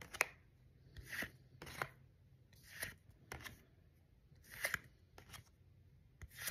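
Pokémon trading cards being flipped through one by one, each card slid from the front of the stack to the back with a short, quiet swish; about ten such strokes at irregular intervals.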